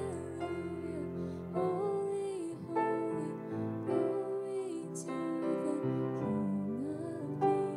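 A woman singing a worship song into a microphone, accompanied by piano played on a stage keyboard.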